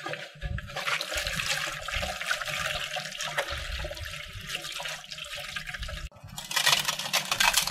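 Water poured from a large plastic jug splashing into an aluminium basin while hands rub slimy eels in it, washing off the slime. About six seconds in the sound changes abruptly to a grainy patter, coarse salt sprinkled onto the eels and the metal basin.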